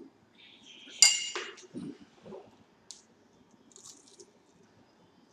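One sharp, ringing clink of dishware about a second in, the loudest sound. It is followed by a few small clicks and a crisp bite into a piece of honey chicken near the end.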